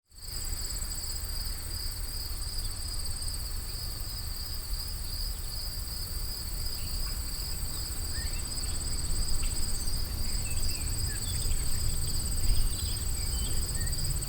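Steady outdoor insect chorus: a high, finely pulsing chirring that runs without a break, over a constant low rumble, with a few faint short chirps in the middle.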